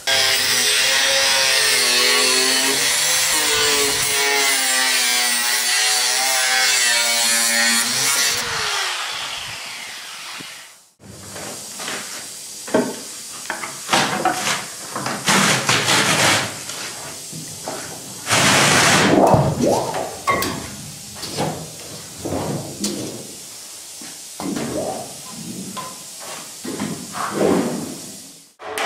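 Angle grinder cutting into the sheet steel of an old refrigerator panel, its motor pitch wavering under load before it spins down about nine seconds in. After that comes a string of irregular scraping and grinding bursts and knocks of metalwork.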